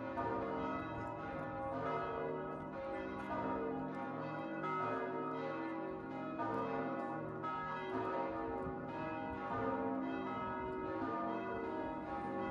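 Several large church bells pealing, their strokes overlapping and ringing on into one another.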